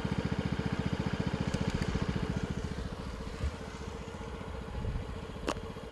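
A vehicle engine running at a steady low idle, pulsing rapidly and evenly and fading slightly over the seconds. A short sharp click about five and a half seconds in.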